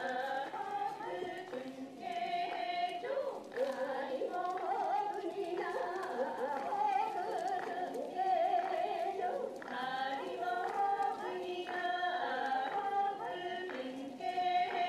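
Several voices singing together in long held notes, from the soundtrack of a film scene of an Ainu festival procession, played back over a video call.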